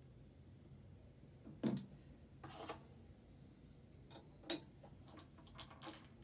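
Small parts and tools being handled while a sewing machine is serviced: a low knock a second and a half in, a brief rustle, a sharp click about four and a half seconds in, then a few lighter clicks.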